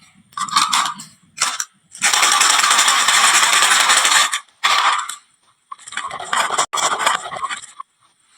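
Marbles rolling and clattering down a wooden marble-run slope. A few short rattles come first, then a dense continuous rolling rattle for about two seconds, then more broken bursts of clatter.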